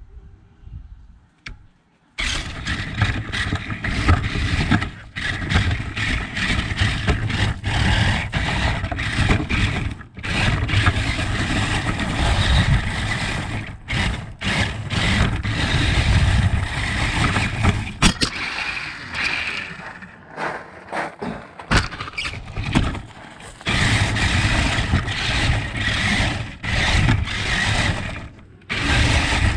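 Remote-control car running in bursts, its motor and gears whirring loudly. It starts abruptly about two seconds in and drops off briefly several times.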